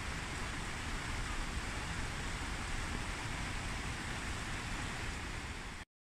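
Heavy rain falling, a steady hiss over a low rumble, breaking off suddenly at the very end.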